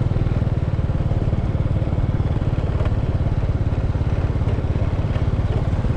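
An engine running steadily, its rapid firing pulses even throughout.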